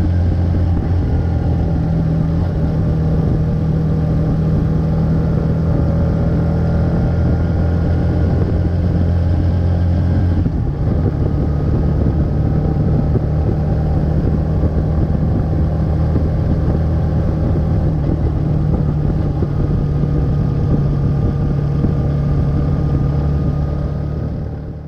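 Suzuki Marauder motorcycle engine running steadily while riding, its low note shifting after a brief dip about ten seconds in; the sound fades out at the very end.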